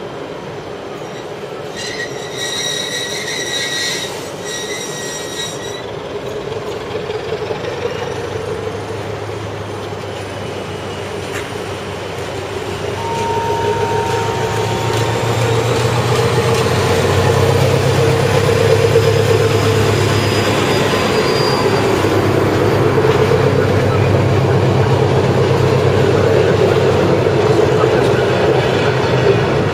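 SM42 diesel-electric locomotive pulling a train of old passenger carriages past. Its engine hum builds from a few seconds in and stays loud as the coaches roll by. Two horn blasts sound near the start.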